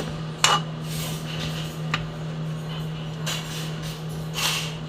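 Cooking utensils knocking and scraping in a pan: a couple of sharp clinks, then short scrapes, over a steady low hum.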